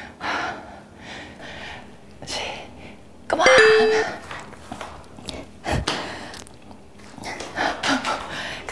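Hard breathing from people at the end of a set of bounce squats. About three and a half seconds in, a short steady tone sounds; it is the loudest thing. A single dull thump follows near six seconds.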